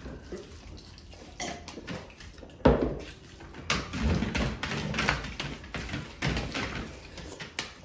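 Eating sounds: rice and curry being mixed and scooped by hand on steel plates, and chewed, in irregular bursts of squelching and scraping. A sharper, louder knock or clatter comes about two and a half seconds in.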